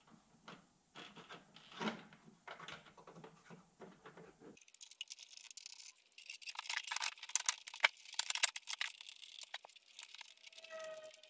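Plastic dash trim pieces being handled in the truck cab: scattered small clicks and knocks. About halfway in, this changes abruptly to a dense, high-pitched crackling rustle with sharp clicks, and a short squeak comes near the end.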